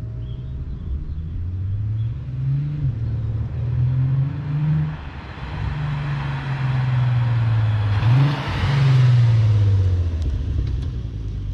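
Volkswagen Passat GT's 3.6 VR6 engine, breathing through Vibrant quiet resonators, launching hard: the revs climb and drop back through two upshifts. The note then eases and falls as the car closes in, drops sharply as it passes close by about eight seconds in, the loudest moment, and fades as it drives away.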